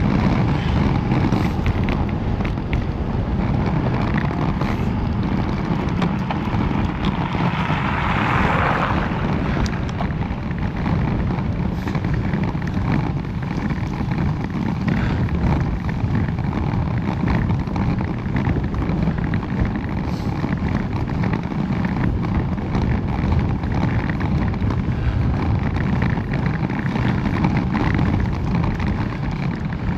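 Wind buffeting the microphone of a camera carried on a moving bicycle, a steady low rumble throughout, with a brief louder rushing sound about eight seconds in.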